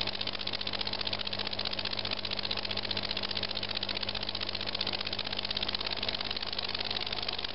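Small model rocking (oscillating-cylinder) engine running steadily on compressed air from an aquarium pump, a rapid, even ticking clatter of its cylinder and exhaust puffs. A steady low hum sits underneath.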